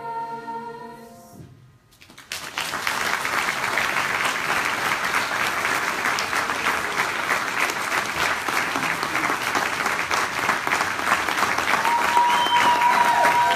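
The school choir's final sung chord dies away, and after a brief silence the audience breaks into steady applause. A held whistle rises over the clapping near the end.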